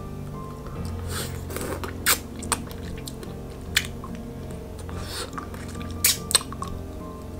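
Wet mouth sounds of hard-candy lollipops being sucked and licked, with several sharp clicks of the candy in the mouth, loudest about two seconds in and again about six seconds in, over soft background music.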